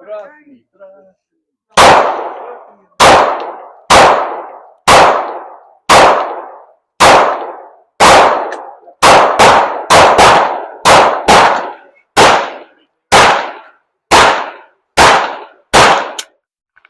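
A string of about seventeen single pistol shots, very loud and close, each with a short ringing echo. They are fired at roughly one a second, with a quicker burst in the middle.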